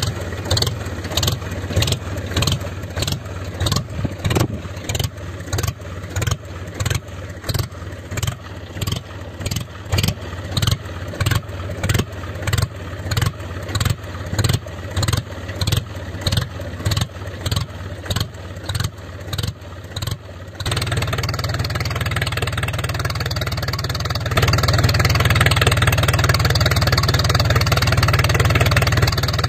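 A DIY mini tractor's engine running. For the first twenty seconds or so it beats regularly, about twice a second; then it changes to a steadier, denser running sound that gets louder a few seconds later.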